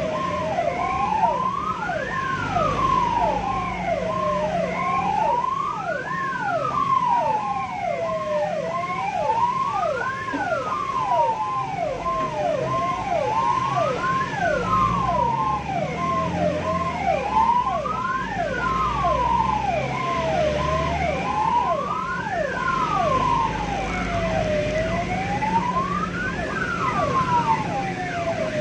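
Ambulance siren sounding two patterns at once: a slow wail rising and falling about every four seconds over a fast falling chirp repeating about twice a second, with a low rumble of the moving vehicle underneath, signalling an emergency run.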